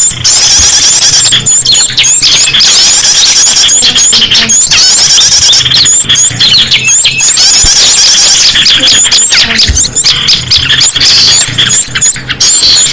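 A loud, busy bird-lure mix of many small songbirds calling at once: rapid high chirps and chatter, with short sharp notes repeated again and again.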